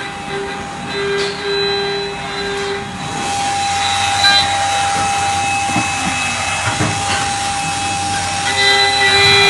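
CNC router spindle running with a steady high whine made of several tones, its end mill cutting into a metal bar with a hissing, grinding noise. The lowest tone of the whine drops out about three seconds in and comes back near the end.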